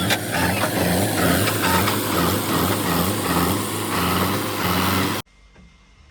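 Heavy machine's diesel engine running loudly with a low pulsing beat about twice a second. It cuts off abruptly about five seconds in.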